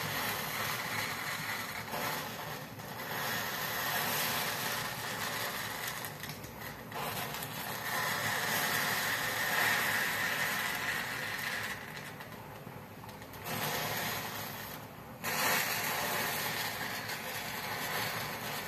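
Wooden matchsticks and a plastic bottle burning: a fire crackling with rapid little snaps and a rushing hiss, swelling and easing off in waves.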